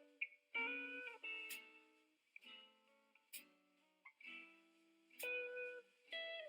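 Background music: a guitar playing a slow run of plucked chords, each left to ring, with short pauses between phrases.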